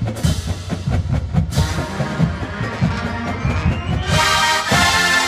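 Marching band playing outdoors: a steady low drum rhythm, then the full brass section comes in loudly with sustained chords about four seconds in.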